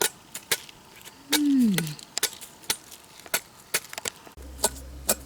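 Repeated sharp knocks at about two a second, in a steady rhythm of chopping-like strokes. A brief falling vocal sound comes about a second in, and a low rumble sets in near the end.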